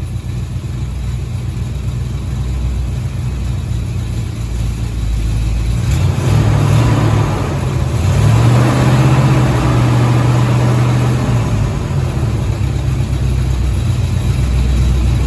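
1983 Chevy Silverado's crate engine idling hot with a rattle at idle, louder for a few seconds past the middle. The rattle comes from the tailpipe touching the transmission, and it only shows up once the engine is hot.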